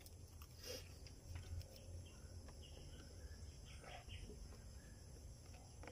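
Near silence: faint outdoor ambience with a low steady rumble and a few faint, scattered bird chirps.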